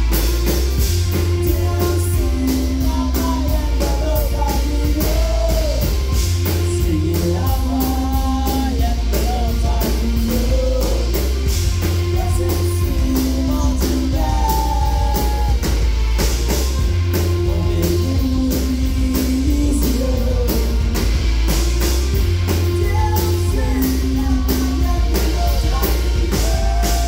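Live rock band playing: a lead vocal over a steady drumbeat, a stepping bass line and keyboard.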